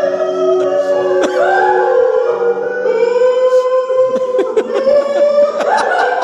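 Amateur live music: a man singing a long, wavering held note into a microphone over sustained electronic keyboard notes, with a few sharp clicks and knocks.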